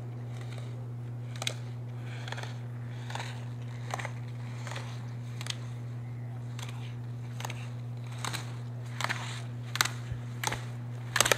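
Slalom racer's skis and body knocking the hinged slalom gate poles: short, sharp clacks about once a second, keeping time with the turns, louder and quicker near the end, over a steady low hum.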